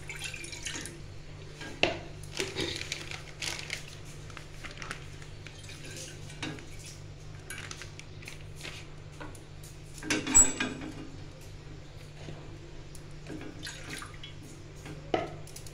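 Liquid poured into an aluminium saucepan on a gas stove, with scattered clinks and knocks of pots and utensils and a louder clatter about ten seconds in, over a low steady hum.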